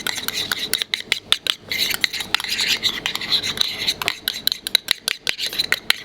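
A utensil stirring sauce briskly in a bowl: quick, uneven scraping and clicking strokes against the bowl as lobster caramel is mixed into hollandaise.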